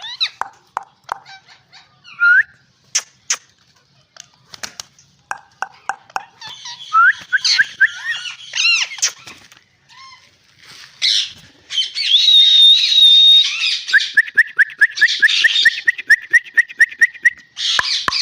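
Green parrots calling: harsh squawks and rising whistled notes mixed with sharp clicks, in bouts with short pauses. Near the end comes a fast run of repeated short notes.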